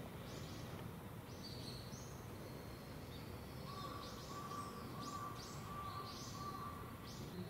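Small birds chirping: short, high calls, several in quick succession in the second half, over a steady low background hum.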